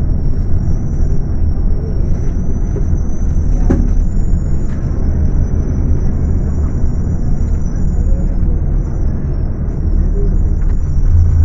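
Scania K250UB city bus's rear-mounted diesel engine running under way, a loud steady low drone with a thin high whine above it.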